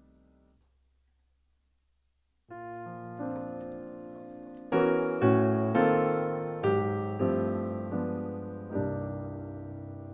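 Background piano music. After a second or two of near silence as the earlier music fades out, a piano enters about two and a half seconds in, playing chords that are struck one after another and left to die away.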